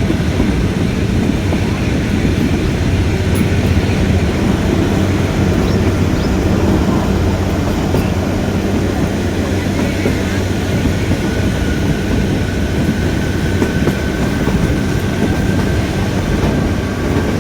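Narrow-gauge Kalka–Shimla toy train heard from inside a moving coach: a steady rumble and rattle of the carriage and wheels on the track. A faint high steady squeal comes in during the second half.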